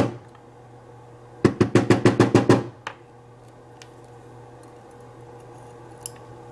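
A quick run of about ten sharp knocks on a hard surface, roughly eight a second, lasting just over a second.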